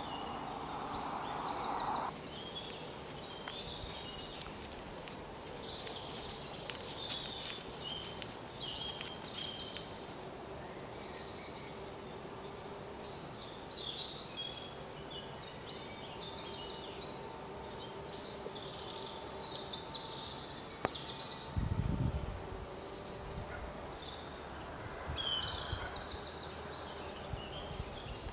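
Countryside ambience of small birds chirping and trilling in short, high-pitched phrases again and again, with a brief low rumble about three quarters of the way through.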